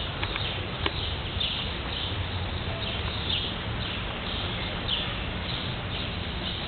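Prairie dogs giving short, high chirping barks, repeated about once or twice a second, over steady outdoor background noise. A single sharp click sounds just under a second in.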